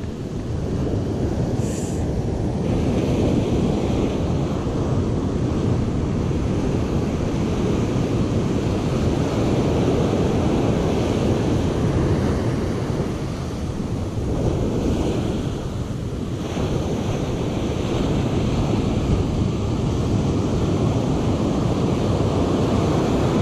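Heavy ocean surf breaking and washing up a sandy beach in a steady rush, with wind buffeting the microphone.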